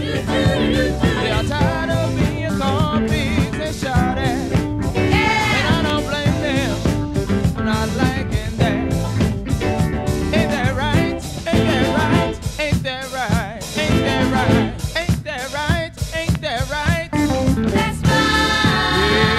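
Funk-disco soul song: a singer over a band with drum kit and a steady beat, with a held chord coming in near the end.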